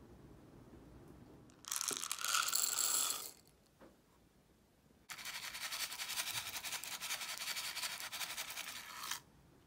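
Small white granules poured from a stick packet onto dry kibble in a ceramic bowl: a fine, dense rattling patter lasting about four seconds. Before it, about two seconds in, comes a shorter, louder crackling rustle.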